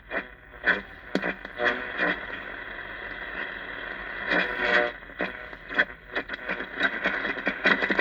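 Realistic DX-200 communications receiver playing through its speaker between stations: steady static hiss broken by irregular short bursts and crackles.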